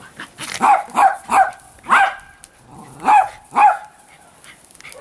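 Small dog yapping in play: a quick run of high-pitched barks in the first two seconds, then two more a little after three seconds.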